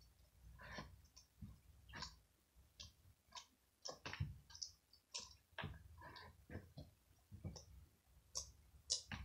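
Slime being kneaded and mixed by hand, giving faint, irregular clicks and pops, one to three a second.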